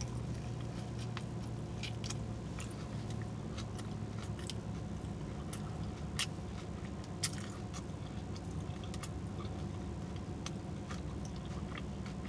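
Close-miked chewing of a mouthful of breakfast burrito: scattered wet mouth clicks and smacks, a little louder about six and seven seconds in. Underneath is a steady low hum from the car's air conditioning.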